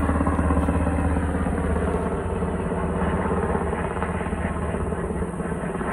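Firefighting helicopter flying overhead: a steady, rapid beat of the rotor blades over the turbine engine, easing off slightly toward the end.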